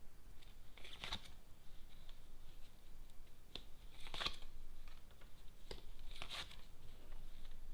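Lenormand cards being handled, drawn from the deck and laid down: a few brief papery rustles and light taps of card on card.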